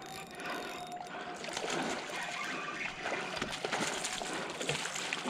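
Hooked striped bass thrashing at the water's surface, a run of splashes and splatters starting about a second and a half in.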